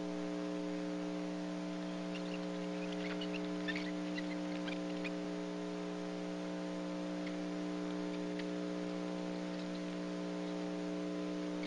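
Steady electrical hum with several even overtones and a few faint scattered crackles: the damaged soundtrack of an old film, carrying no aircraft or narration sound.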